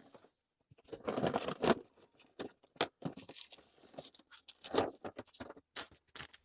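Rustling, crinkling handling noise with scattered clicks, as plastic welding filler rods and their packaging are picked up. The busiest stretch comes about a second in, with another near the five-second mark.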